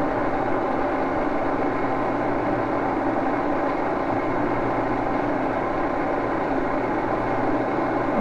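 Steady hum of running machine-shop machinery, a constant drone with several held tones and no change in speed.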